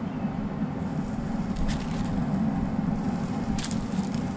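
Steady low hum of a Traeger wood pellet grill running, its fan blowing, with a few light clicks as wooden skewers of salmon are set down on the hot grate.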